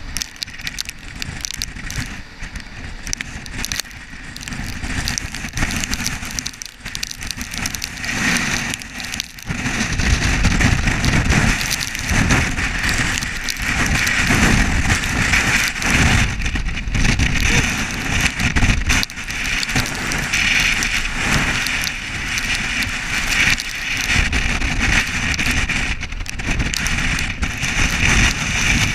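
Hurricane wind and rain, with gusts buffeting the microphone in a low rumble that gets stronger about a third of the way in.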